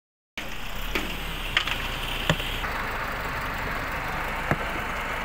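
Tractor engine running steadily as its front loader works, with a few short, sharp knocks.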